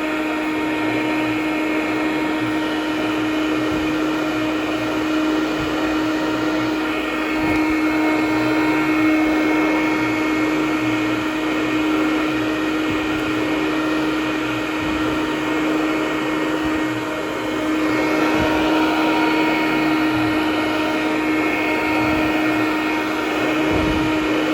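Hoover Conquest Widetrack commercial direct-air upright vacuum running steadily with a strong steady hum as it is pushed over low-pile carpet tile, its level rising and falling slightly with the strokes.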